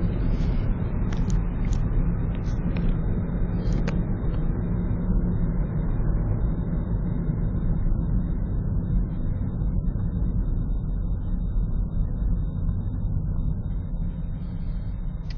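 Road noise heard from inside a moving car: a steady low rumble of engine and tyres, easing off a little near the end.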